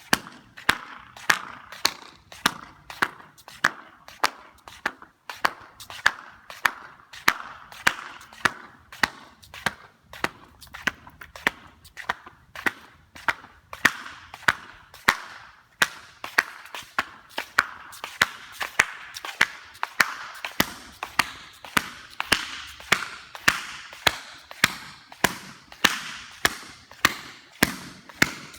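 Flip-flops slapping in a steady rhythm, about two sharp flops a second.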